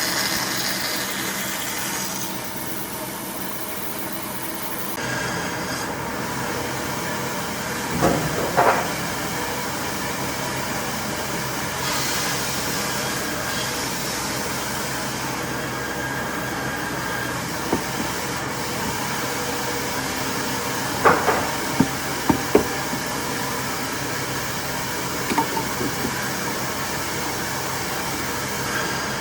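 A steady mechanical hum with a few sharp knocks: a double knock about eight seconds in, a quick cluster of four around twenty-one seconds, and a couple more near twenty-five seconds.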